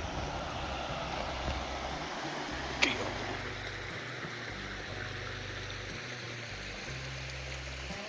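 River water flowing and burbling steadily, with one sharp click about three seconds in.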